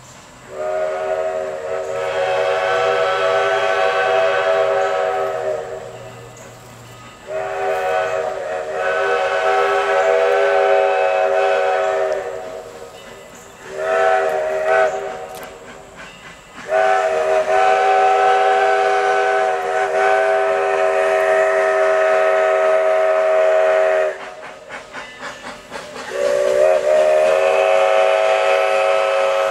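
Steam whistle of a 2-8-0 steam locomotive blowing the grade crossing signal: two long blasts of about five seconds each, a short blast, then a longer held blast, with another long blast beginning near the end. The whistle sounds a steady chord with some hiss.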